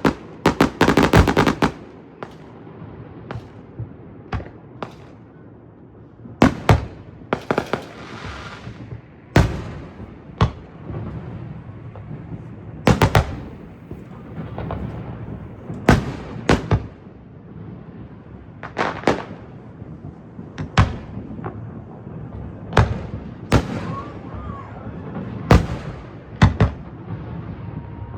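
Aerial fireworks going off: sharp booms at irregular intervals, one every one to three seconds, some in quick pairs, with a burst of rapid crackling near the start and another about eight seconds in.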